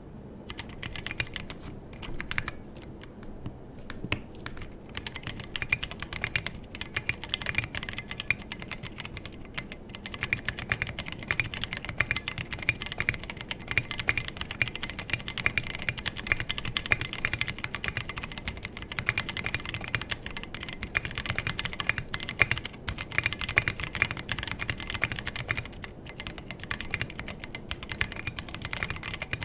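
Typing on a 60% mechanical keyboard with a brass plate, stock Halo True tactile switches, no foam and SA-profile PBT keycaps. It starts with a few separate presses of the modifier keys, then from about four seconds in runs into fast, continuous typing with the board on the bare desk, off its deskmat.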